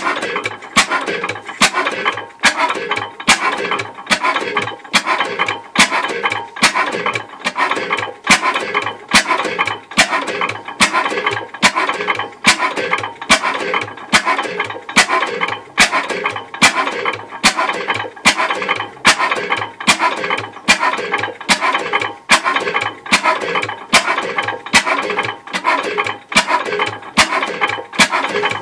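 Hornsby 5 hp horizontal single-cylinder oil engine running at a steady slow speed, each firing a sharp knock in an even, regular beat, under one a second.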